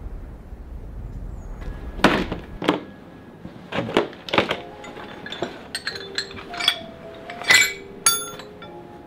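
Low wind rumble, then steel stone-carving chisels clinking and knocking against each other as they are handled. There are about a dozen sharp clinks, the later ones ringing on briefly.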